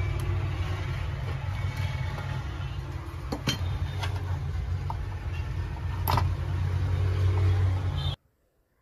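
A steady low rumble with a few sharp clicks, among them a click about three and a half seconds in and another about six seconds in; the sound cuts off abruptly near the end.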